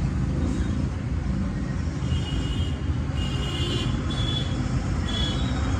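Steady low rumble of road traffic, with faint short high tones coming and going about once a second in the second half.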